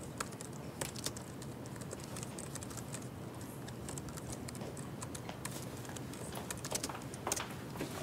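Typing on a laptop keyboard: a quick, uneven run of key clicks.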